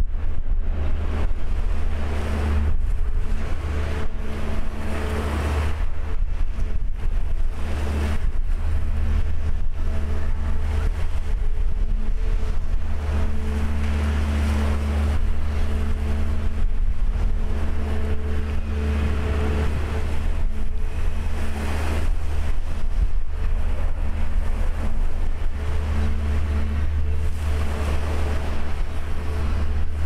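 A vessel's engine running in a steady low drone, with wind buffeting the microphone and waves splashing against the hull.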